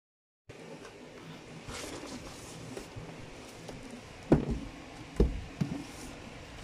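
Cardboard shoebox being handled and set down on the floor: faint rustling, then three dull knocks, the loudest a little over four seconds in and two more about a second later. The sound drops out completely for half a second at the start.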